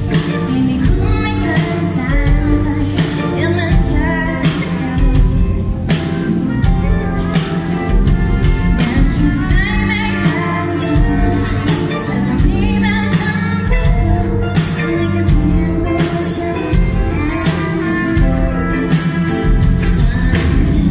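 A live band plays a song through a PA: a woman sings over strummed acoustic guitar and electric bass, with regular percussion hits.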